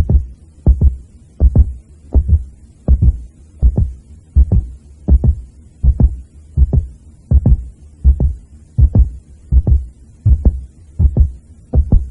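Heartbeat sound: a steady lub-dub double thump, about eighty beats a minute.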